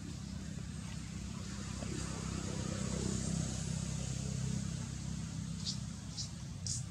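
Low engine rumble of a motor vehicle passing, swelling through the middle and easing off, with a few short high chirps near the end.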